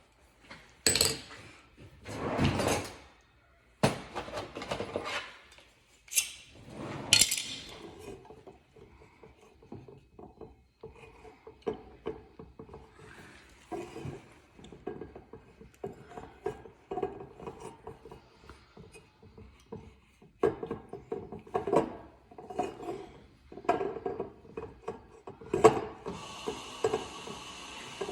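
Hands picking and scraping at the wax seal and synthetic cork of a whiskey bottle, with irregular scrapes, knocks and clinks of glass. The bottle is stubborn to open.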